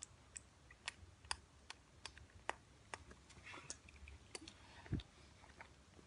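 A parrot kissing a man: irregular, quick wet clicks and smacks of beak, tongue and lips, about two a second, with a soft low thump about five seconds in.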